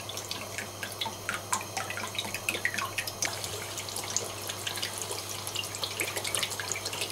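Oil, water and soy sauce bubbling in a hot cast-iron kazan, with many scattered small pops and crackles, as soy sauce is poured in.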